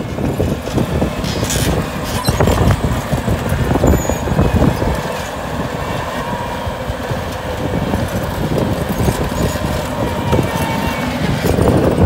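Bobcat compact track loader's diesel engine running under load as it pushes and grades dirt, with repeated clanks and rattles from its tracks and bucket.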